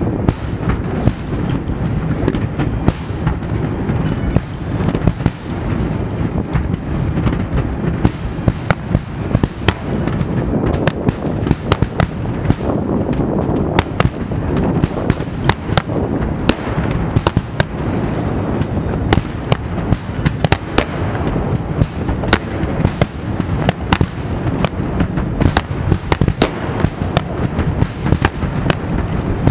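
Water-surface starmine fireworks firing in a rapid, unbroken barrage: a dense low rumble of booms with many sharp cracks throughout.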